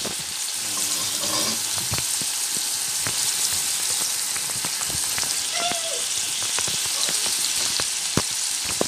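Mutton pieces and onion sizzling in hot oil in a pressure cooker, with scattered clicks of a metal spatula against the pot.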